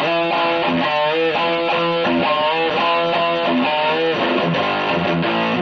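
Guitar-led intro music, a run of sustained notes, some of them bent up or down.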